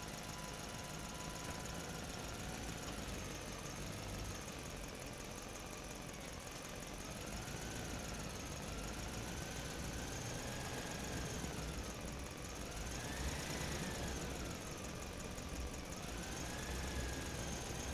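A motor or engine running steadily, with a whine that slowly rises and falls in pitch.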